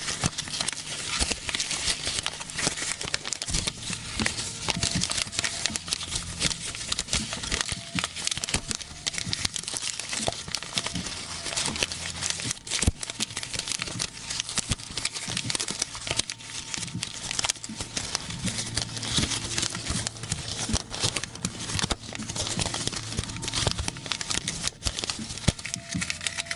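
Paper being rustled and crumpled by hand: a dense, continuous crackling.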